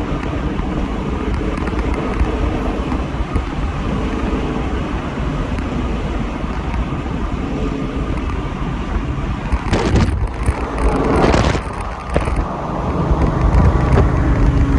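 A car driving at speed, its engine and road noise making a steady low rumble, with a louder rush of noise for about a second and a half about ten seconds in.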